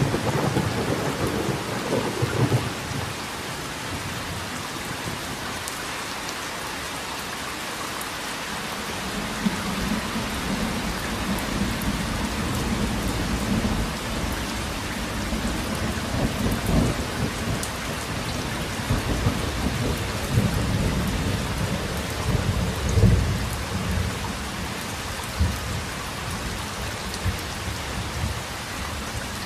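Steady rain with thunder rumbling low several times, the loudest rumble about three-quarters of the way through.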